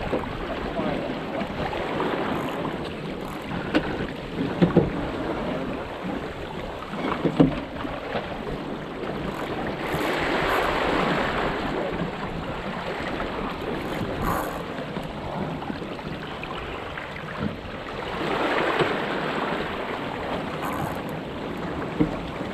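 Water rushing and splashing along the hull of a National 18 sailing dinghy moving under spinnaker, with wind buffeting the microphone. The rush swells twice, about ten seconds in and again later, and a few sharp knocks come from the boat.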